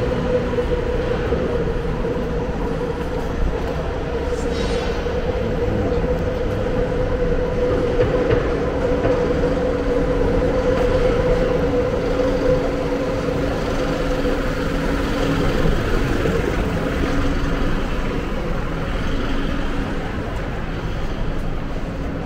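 Steady city street noise with a continuous mechanical hum, typical of a train running on an elevated railway line.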